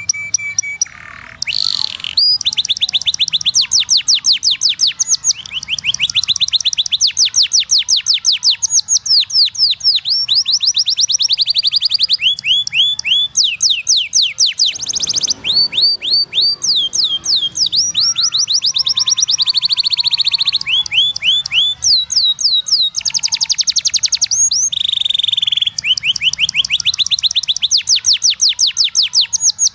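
Domestic canary singing a continuous song of fast trills: rapid runs of one repeated note, each run switching to a new note after a second or a few, with a few held whistles among them.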